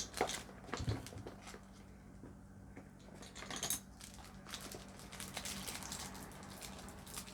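Handling noise from makeup brushes and their plastic packaging: a few sharp clicks and taps in the first second or so, another cluster of clicks and rustling about three and a half seconds in, then faint ticking and rustling.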